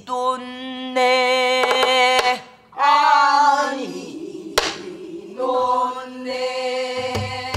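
Korean folk song sung in the Namdo style: a woman's voice holds long wavering notes, joined by more than one voice, with a steady lower note beneath. A few sharp knocks of a wooden stick on a buk barrel drum mark the beat, the loudest about four and a half seconds in.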